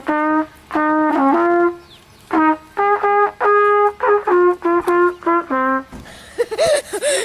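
A trumpet blown loudly in a run of held blasts and short notes, stepping between a few low pitches, stopping about six seconds in.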